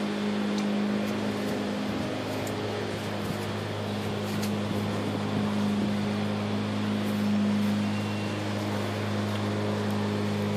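A steady, unbroken low machine hum, like a motor running at a constant speed.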